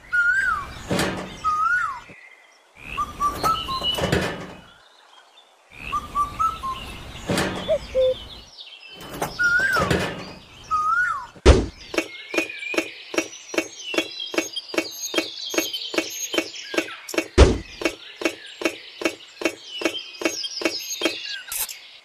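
Small plastic toy doors and windows knocking as they are picked up and set down, with short bird chirps. From about halfway there is a fast, even clicking, about three a second, with two louder knocks.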